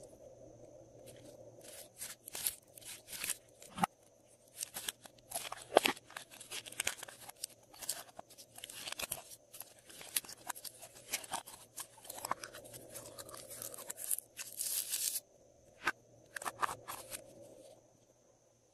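Clear green slime squeezed, stretched and pulled by hand from a plastic container, giving quick runs of crackling, popping clicks with short pauses between them; the handling goes quiet near the end.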